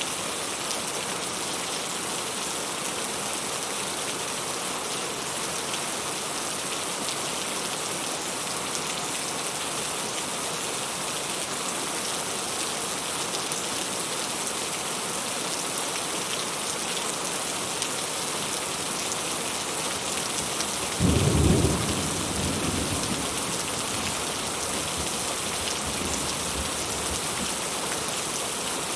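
Heavy rain falling in a steady, even hiss. About three-quarters of the way through, a short low rumble of thunder swells up loudly and dies away over a couple of seconds.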